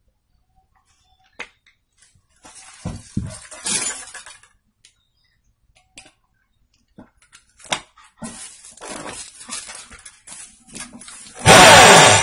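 Scraping and light knocks as a steel rifle barrel and a sheet of coarse sandpaper are handled and set on a concrete floor. About a second before the end an electric drill starts up loudly, spinning the barrel's muzzle against the sandpaper to crown it.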